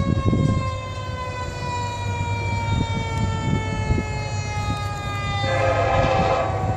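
Emergency vehicle siren holding one long tone that slowly falls in pitch, over a steady low engine rumble. Near the end a horn sounds briefly.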